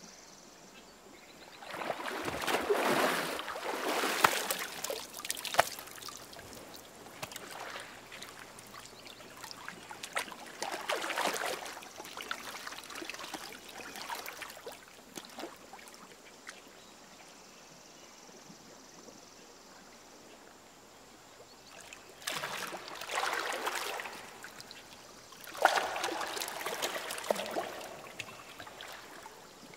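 River water splashing and sloshing as a person is dunked under and lifted back out of it: several bursts of splashing a few seconds apart, loudest in the first few seconds and again near the end, with quiet lapping between.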